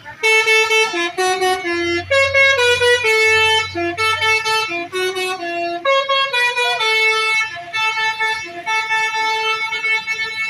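Telolet musical horn on an Indonesian tour bus (a Basuri multi-tone horn), loudly playing a quick tune of short notes stepping up and down.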